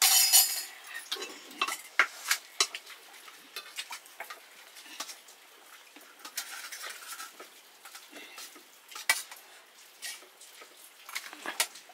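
Scattered clinks and scrapes of stainless steel plates, cups and a serving spoon at a meal eaten by hand, with a loud ringing clink right at the start and another about nine seconds in.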